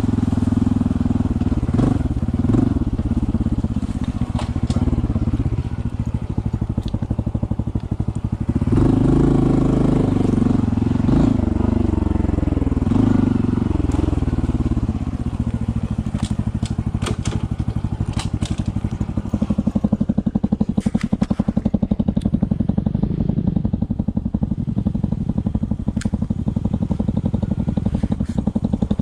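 Honda CT125's single-cylinder engine on a muddy trail, revving up and down as the throttle is worked, then settling to a steady, even low chug about two-thirds of the way in. Sharp clicks and ticks come through around the middle.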